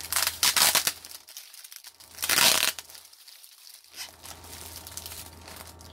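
Clear plastic packaging crinkling and rustling as it is handled and pulled open. There is a loud rustle in the first second, the loudest burst about two seconds in, then softer crinkling.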